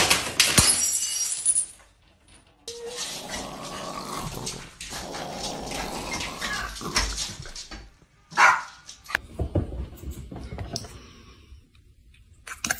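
A small dog growling and barking for several seconds. At the start there is a brief clatter of objects falling onto a floor.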